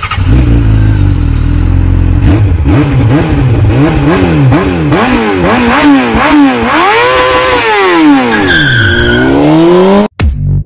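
Engine revving hard over and over, its pitch sweeping up and down in quick succession, with a high squeal near the end: a stock car or motorcycle revving sound effect.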